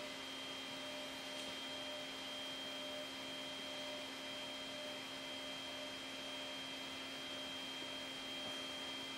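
Faint, steady electrical hum with a high whine held on one pitch, from a powered-up Flying Bear P902 3D printer standing idle with its electronics and motors energised.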